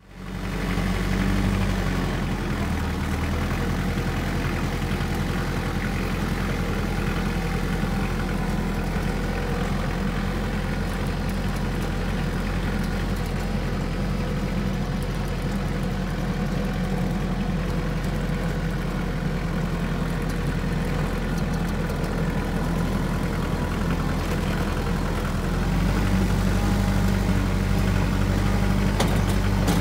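Farm tractor's diesel engine running steadily, heard from the tractor with its front loader raised. The engine gets louder about 26 seconds in.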